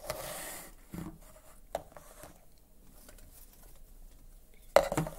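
Plastic Play-Doh tubs handled and set down on a wooden table: a brief scraping rustle, a couple of light knocks, then a sharper knock near the end.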